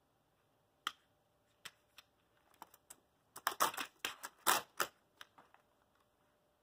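Laptop keyboard keys clattering under dogs' paws: a single click about a second in, a few scattered taps, then a rapid flurry of key presses in the middle.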